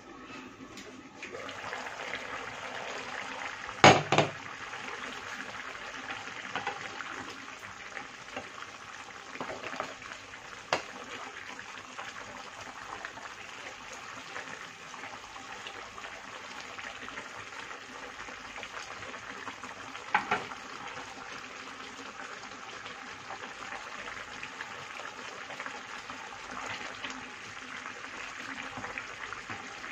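Chicken adobo simmering and sizzling in an aluminium frying pan. A steady bubbling hiss gets louder about a second in, and a wooden spoon stirs the pieces. A few sharp knocks are heard, the loudest about four seconds in and another about twenty seconds in.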